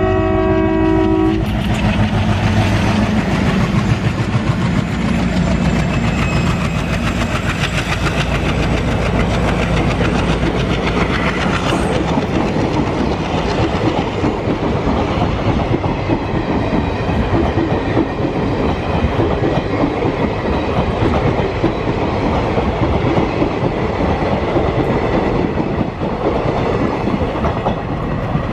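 Twin ALCo WDG3A diesel locomotives accelerating past, their horn ending about a second and a half in. The engine noise gives way to the rolling rumble and clickety-clack of the passenger coaches going by.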